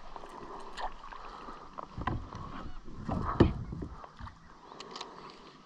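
Knocks, thumps and scattered clicks from fishing gear being handled aboard a plastic kayak, busiest from about two to four seconds in, with the loudest knock about three and a half seconds in.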